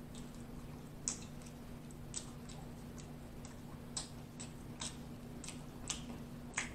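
Close-miked eating of fried food: irregular sharp mouth clicks and smacks from chewing, about two a second, over a low steady hum.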